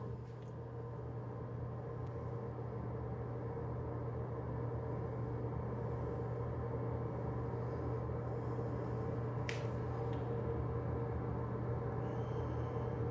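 Steady low machine hum, growing slightly louder over the first few seconds, with a single short click about nine and a half seconds in.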